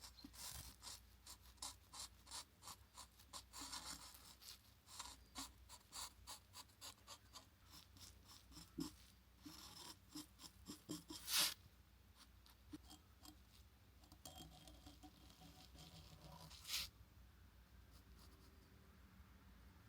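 Faint, light scratching strokes, a few each second for about ten seconds, with a louder single scrape near the middle and another a few seconds later.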